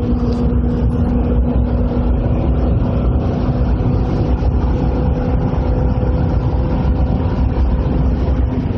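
2005 Corvette C6's 6.0-litre LS2 V8 running at a steady engine speed, its note held at one pitch, under a dense rumble of road noise.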